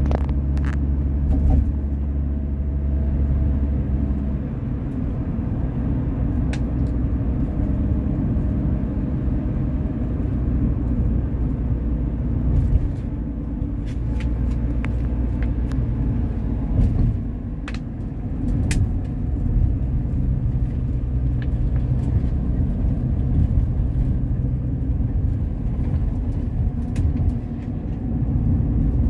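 Steady low engine and road rumble heard from inside a moving vehicle's cabin. The engine note shifts about four seconds in, and a few light clicks and rattles are scattered through it.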